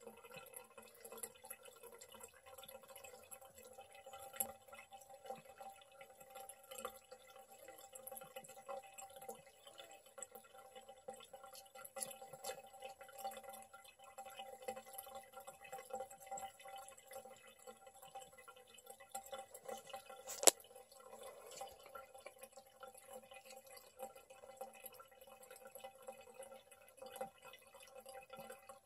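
A thin stream of tap water trickling and dripping into a ceramic sink basin, with small irregular splashes throughout. A single sharp click about two-thirds of the way through.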